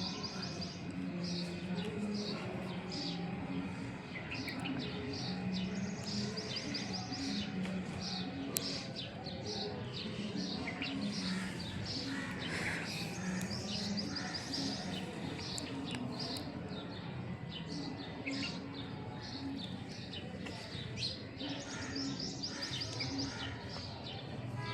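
Small birds chirping in repeated short trilled phrases, coming back every few seconds.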